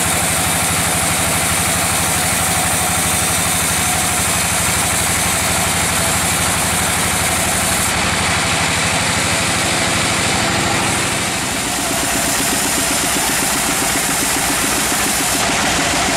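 Large band sawmill running steadily as its blade cuts through a teak log, a continuous machine drone with a dense hiss over it. The sound shifts about halfway through and dips briefly soon after.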